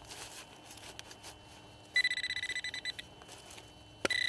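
Garrett Pro-Pointer pinpointer sounding a steady high alert tone for about a second, starting about two seconds in, and again near the end: it is signalling a lead musket ball lodged in the rotten log. Soft scraping of the probe tip in the wood comes in between.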